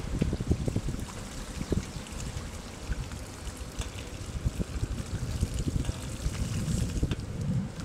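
Bicycle tyres swishing and splashing through shallow floodwater covering a paved path, over low wind rumble on the microphone.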